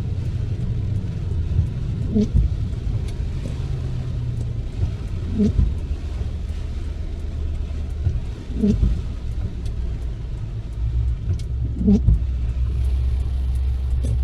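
Car cabin in the rain: steady low road and engine rumble, with the windshield wipers sweeping about every three seconds, each pass giving a short pitched groan. The wiper blades are dragging stiffly on the glass.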